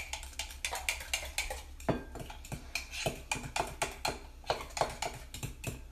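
Metal fork clinking rapidly and irregularly against the inside of a ceramic coffee mug, several strikes a second, as it whisks a thick chocolate mug-cake batter to get the lumps out.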